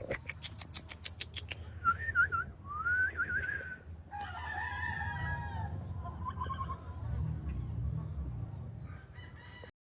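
Blue Mug gamefowl roosters crowing: a wavering crow about two seconds in, a longer one from about four seconds in, and a short call near seven seconds. It opens with a rapid run of clicks, about six a second.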